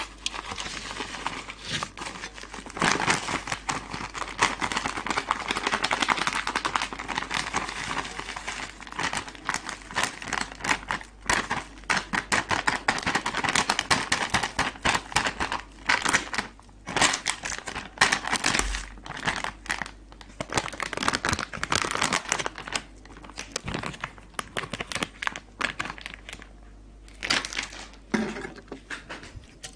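Close-miked crackly crunching and crinkling from eating Cheetos, in dense irregular runs that thin out for a few seconds near the end.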